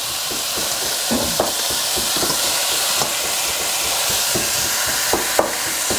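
Pork ribs sizzling steadily as they brown in hot oil and caramelized sugar in a steel pot. A metal spoon turning them clinks against the pot a few times.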